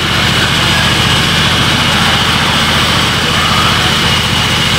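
Band sawmill running steadily, its drive giving a rapid, even low throb under a steady high tone.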